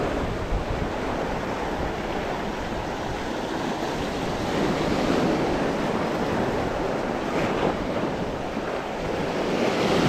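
Sea surf breaking and washing over shore rocks, with wind buffeting the microphone.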